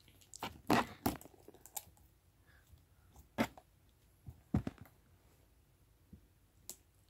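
Thick slime being kneaded and stretched by hand, giving irregular sticky clicks and pops, a few louder than the rest.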